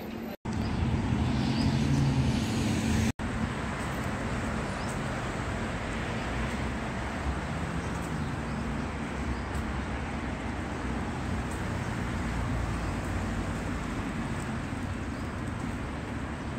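Steady outdoor rushing noise of wind on the phone's microphone mixed with passing road traffic, cutting out briefly twice in the first few seconds.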